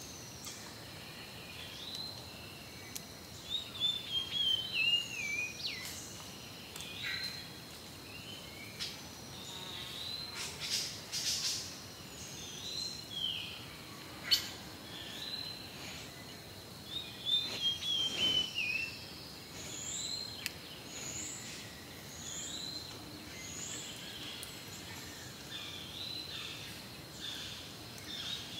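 Several birds chirping and calling over a steady background hiss, with short notes, some sliding down in pitch, overlapping throughout. A single sharp click about halfway through.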